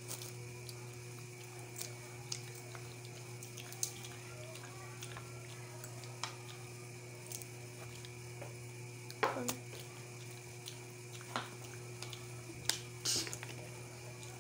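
Peanut shells being cracked open by hand: scattered short, sharp cracks and clicks at irregular intervals, a few louder ones in the second half, over a steady low hum.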